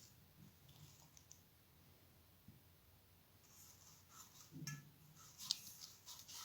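Near silence with a few faint, scattered clicks and light ticks, the sharpest about five and a half seconds in.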